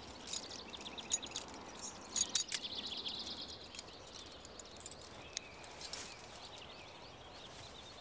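Forest ambience with small birds singing in quick repeated trills and chirps, and a few short sharp clicks.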